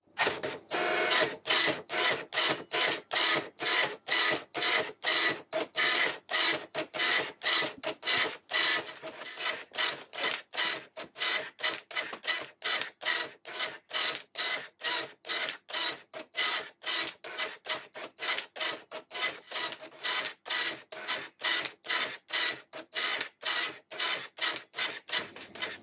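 Epson FX-80 dot-matrix printer printing a program listing line by line: the print head runs across once for each line, nearly three lines a second, with a short pause between lines.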